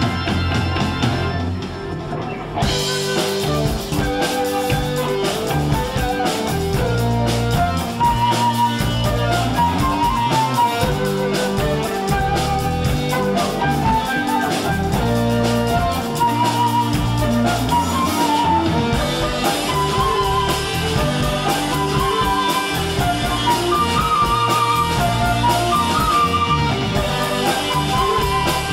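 Rock music: an instrumental passage with electric guitar and a drum kit playing a steady beat, the drums coming in about two and a half seconds in.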